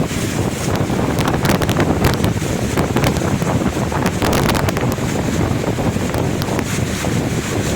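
Strong cyclone wind buffeting the microphone over rough sea surf, a steady loud rush with frequent short gusty hits.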